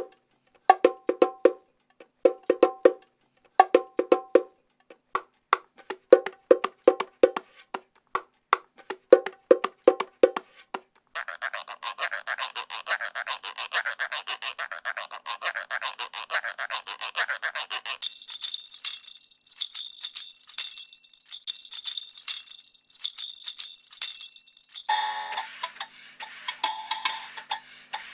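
A sequence of different percussion samples. It opens with short phrases of ringing strokes, changes about eleven seconds in to a continuous shaken rattle, and at about eighteen seconds to a bright metallic jingling. Near the end a busier struck pattern comes in.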